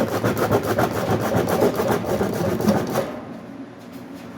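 Bondo body filler being sanded by hand in fast back-and-forth strokes, a rapid rhythmic scraping that stops about three seconds in.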